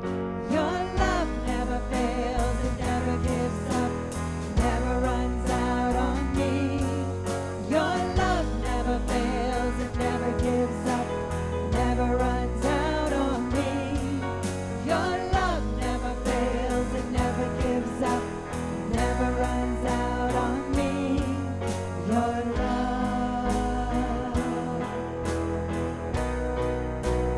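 A worship song: a sung melody over guitar and a steady beat.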